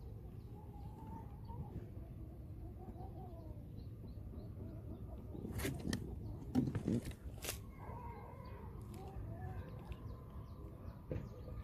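Outdoor ambience with faint wavering bird calls, a few sharp knocks about six to seven and a half seconds in, then a faint steady high tone.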